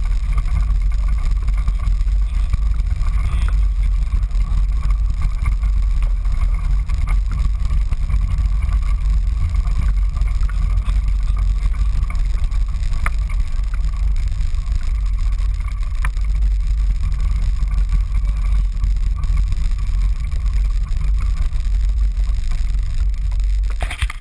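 IAME X30 125cc two-stroke kart engine running steadily at idle with the kart standing still, a dense low rumble heard through the chassis-mounted camera.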